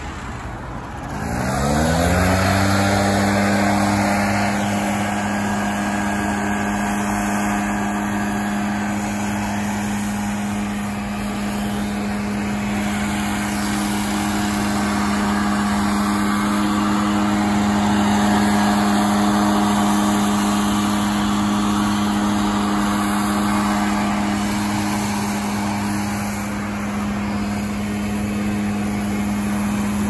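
An engine speeds up over about a second, then runs steadily at a high, constant speed.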